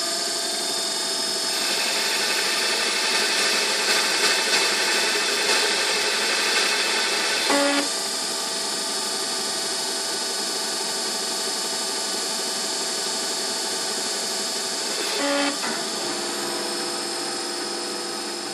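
Emco Compact 5 CNC lathe running at 500 RPM through a grooving cycle on an aluminium backplate: a steady machine hum with several held tones, louder for the first several seconds while the grooving tool cuts. Two brief whirs come about 7.5 and 15 seconds in.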